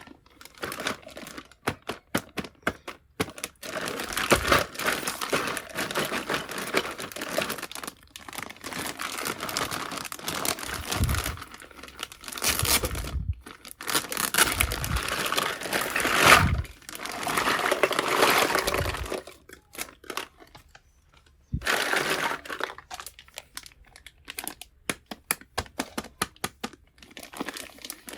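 Plastic packaging of a miniature toy kitchen set crinkling and tearing during unboxing, with many small sharp clicks and taps. There is a short pause about two-thirds of the way through.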